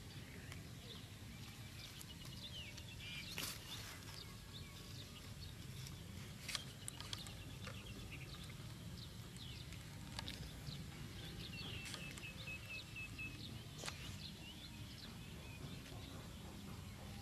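Faint outdoor ambience: a steady low rumble with scattered short bird chirps and, near the end, a brief trill of quick repeated notes.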